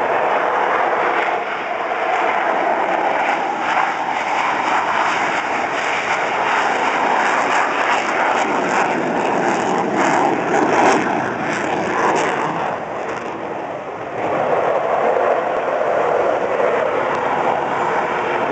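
F-15 Eagle fighters' twin turbofan engines at take-off power, a steady loud jet rumble heard from a distance as the jets roll down the runway. It eases off about thirteen seconds in and swells again a second or so later as the next jet starts its roll.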